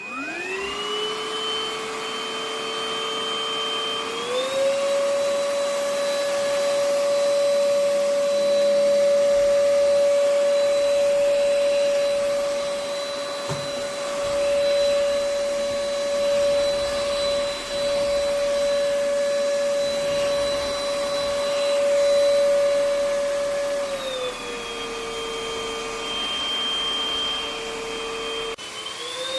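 UML0 N8 cordless stick vacuum's motor switching on and spinning up to a steady high whine. It steps up in pitch about four seconds in, drops back to the lower pitch about twenty-four seconds in, and rises again near the end.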